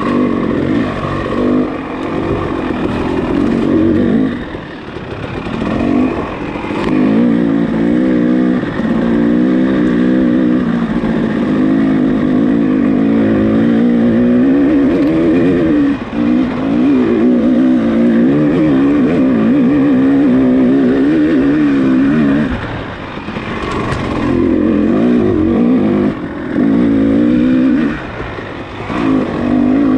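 Off-road dirt bike engine revving hard under a constantly changing throttle, its pitch rising and falling without pause. There are brief drops in revs as the throttle is rolled off, about five times.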